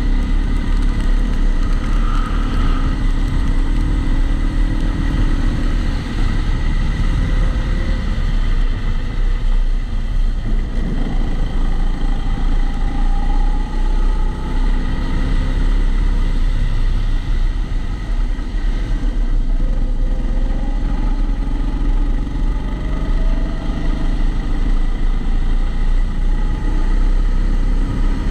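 Kombikart Eco rental kart driven on track, its motor running steadily with faint rises and falls in pitch. It is heard through an onboard camera sealed in a waterproof housing, which muffles it and adds a constant low rumble.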